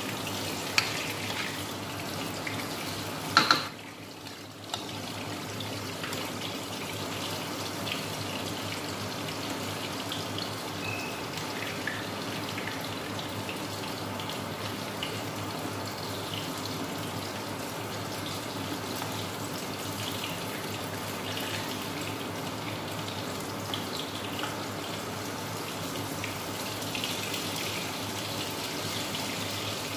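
Chop suey of chicken and vegetables cooking in a wok, a steady sizzle and bubble of the sauce. A sharp clatter about three and a half seconds in is followed by a brief dip in the sizzle.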